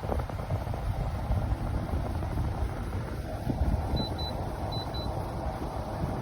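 Portable air conditioner running, a steady low rumble with airflow noise. Faint pairs of short high beeps come in about four seconds in.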